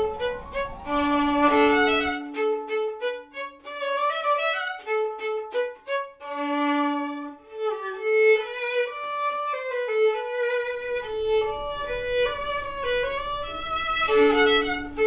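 Instrumental background music: a violin playing a melody, with some notes held about a second and others in quicker runs.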